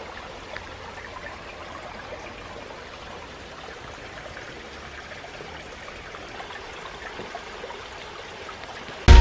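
Shallow woodland stream trickling over stones: a steady, even flow of water.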